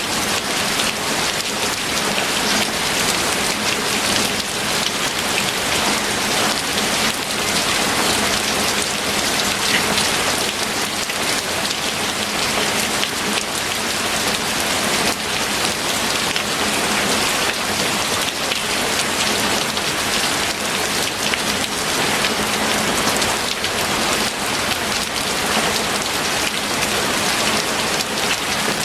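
Steady, heavy rain falling, a dense hiss of drops hitting a surface.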